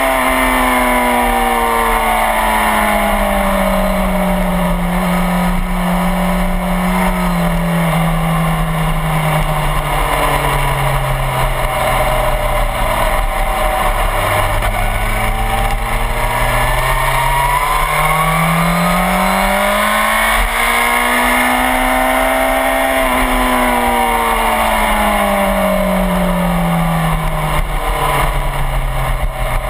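Suzuki GSX-R1000 sportbike's inline-four engine heard onboard at track speed, under a steady rush of wind noise. The engine note falls slowly through the first half as the bike slows and leans through a corner, climbs steadily on the drive out, then falls again near the end into the next corner.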